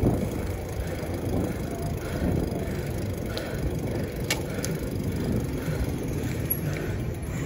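Gravel bike rolling along an asphalt street: a steady low rushing of tyres and moving air, with a few short sharp clicks a little past the middle.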